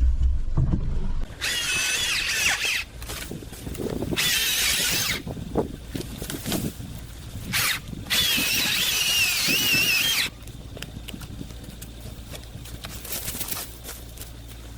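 A power saw cutting through firewood in three bursts, its whine wavering in pitch under load, with knocks and handling noise between the cuts.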